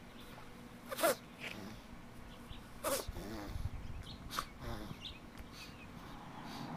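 A pug sneezing: three sharp sneezes about one and a half to two seconds apart, the first the loudest. It is a sneezing fit set off by something from the grass.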